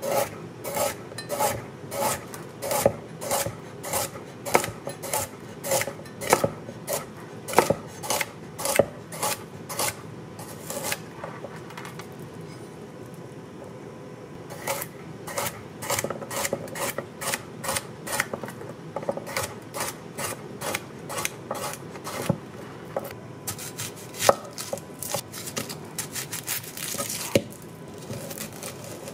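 Chef's knife slicing a carrot into rounds on an end-grain wooden cutting board: a steady run of knife knocks on the wood, about two a second, with a pause of a few seconds a little over a third of the way in.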